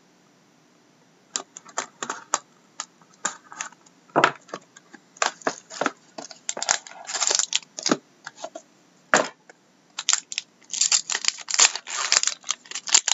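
A trading-card box being cut and prised open by hand: scattered clicks, taps and scrapes of cardboard and packaging. Near the end they come thick and fast as the packaging is pulled apart.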